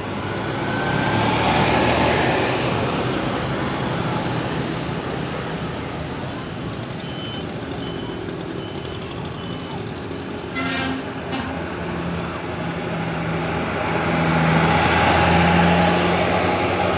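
Road traffic with heavy vehicles running past, swelling loud twice. About seven seconds in there is a short run of five high, evenly spaced beeps, and later a steady low engine hum.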